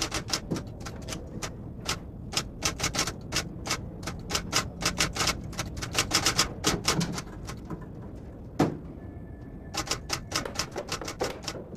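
Footsteps of several people walking briskly on a hard floor: a fast, irregular run of sharp clicks and taps, easing off briefly about eight seconds in.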